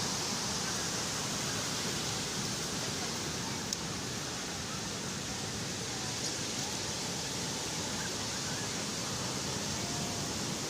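Calm sea surf washing on the shore as a steady, even hiss with no distinct breaking waves. A faint click sounds nearly four seconds in.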